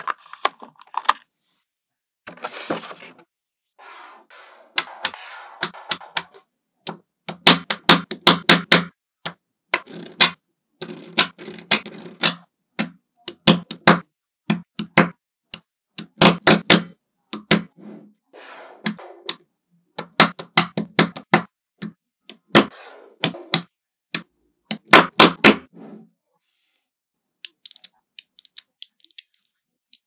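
Small magnetic balls clicking and snapping together in quick clusters of sharp clicks as they are handled and pressed into place, with softer rustling and rattling between the clusters.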